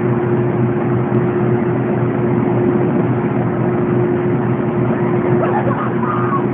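Boat's engine running steadily, a constant droning hum.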